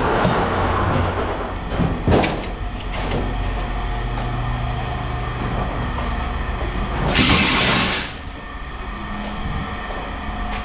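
Scrap being handled and dropped, with knocks and clatter near the start and at about two and three seconds, over a steady engine hum. A loud rushing noise lasts about a second near seven seconds in.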